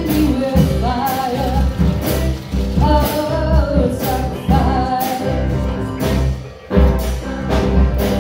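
Live rock band: a woman singing over electric guitars, bass guitar and drums, with a brief drop about six and a half seconds in before a loud hit brings the band back in.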